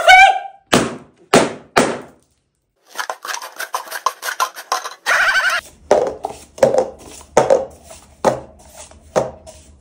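Cups being set down and handled on a tabletop: a string of short knocks and clatters, three close together at first, then about one a second towards the end.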